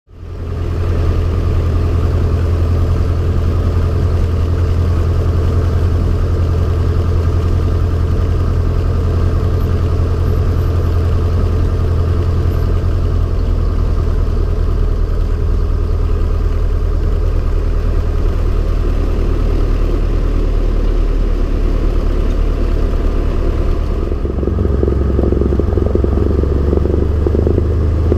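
Cessna 170B's six-cylinder Continental engine and propeller running steadily as one deep drone. About 24 seconds in, the drone shifts slightly in pitch and grows a little louder, a change in engine power.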